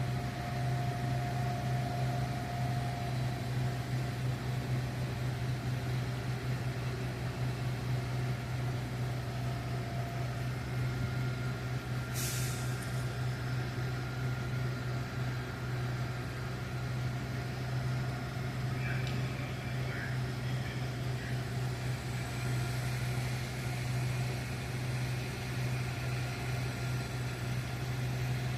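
Fire truck engine idling with a steady low hum, and a short hiss about twelve seconds in.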